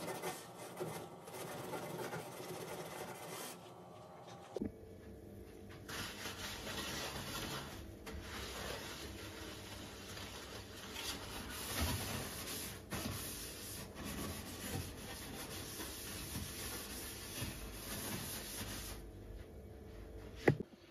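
Sponge scrubbing the soapy stainless-steel top of a gas cooker in a steady rubbing. A single sharp knock comes near the end.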